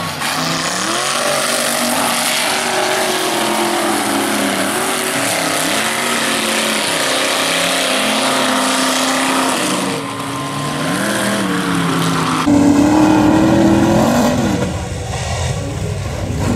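Engine of a stretched square-body Chevy mega mud truck revving up and down over and over as the truck churns through deep mud, under a steady rushing hiss. About twelve seconds in, the sound switches abruptly to a louder, deeper engine note.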